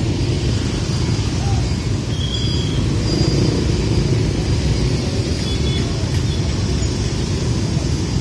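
Scooter and motorcycle engines running in slow, congested motorbike traffic: a steady low rumble, with a few short, high-pitched tones now and then.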